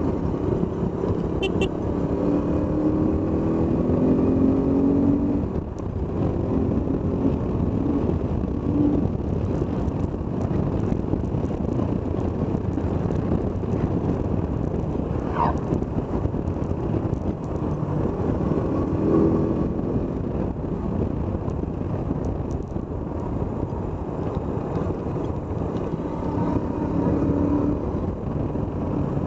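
KTM motorcycle engine running under way, its pitch rising and falling as the rider speeds up and eases off through the bends, with wind rushing over the microphone.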